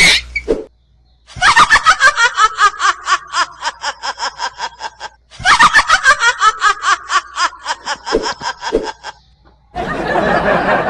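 Witch's cackle sound effect: two long, high-pitched cackles made of rapid laugh pulses, about five a second. Near the end it gives way to a studio audience laughing.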